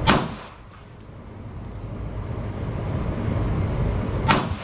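Two pistol shots from a compact semi-automatic handgun, about four seconds apart, each a sharp crack with a short echo across the range, over a steady low rumble.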